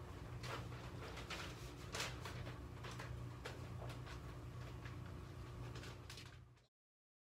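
Light plastic clicks and knocks as a protein skimmer's collection cup and lid are handled on top of a saltwater aquarium, over the steady low hum of the running aquarium equipment. The sound cuts off suddenly near the end.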